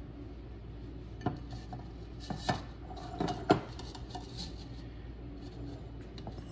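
A ladle knocking and scraping against the inside of an enamelled pot while scooping out thick cooked guava pulp: several sharp clinks between about one and four seconds in, the loudest near three and a half seconds.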